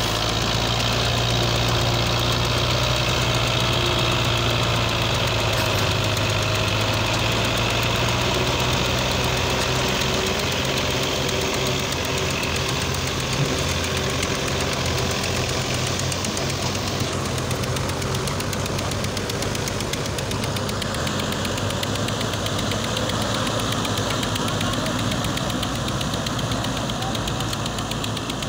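Tractor engine running steadily, with a deep, even hum that thins out a little partway through.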